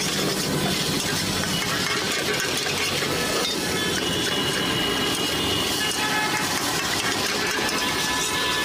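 Noodles being stir-fried in a steel wok over a gas burner: a steady sizzle and burner hiss, with the metal spatula scraping against the wok.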